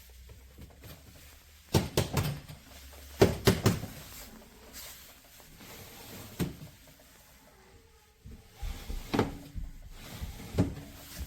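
Clunks and knocks of an under-desk keyboard tray being handled, in several short clusters, the loudest about two and three and a half seconds in and again between nine and eleven seconds.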